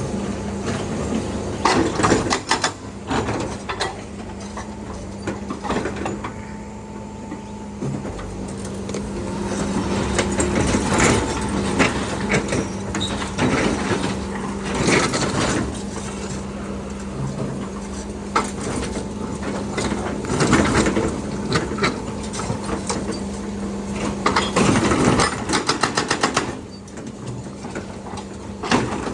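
Hitachi Landy mini excavator running at a steady engine note, with repeated irregular clanks and scrapes from the machine working.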